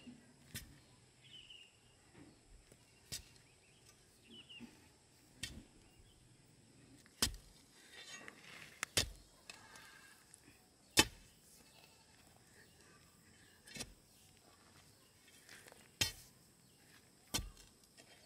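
Hand tool striking hard, about nine separate sharp blows a couple of seconds apart, the loudest about eleven seconds in, with a scraping sound between blows around the middle.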